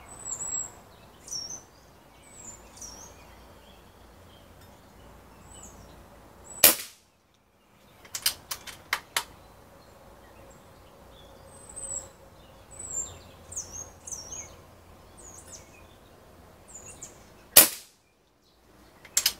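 Umarex Gauntlet .22 PCP air rifle firing twice, a sharp crack each time, about eleven seconds apart. A couple of seconds after the first shot comes a quick run of clicks as the bolt is worked for the next pellet. Small birds chirp throughout.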